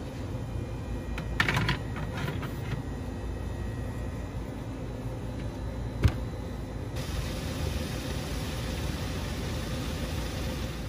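Wooden peel scraping and clattering on a hot baking stone, then an oven door shutting with a single sharp knock about six seconds in. A steady hiss sets in a second later.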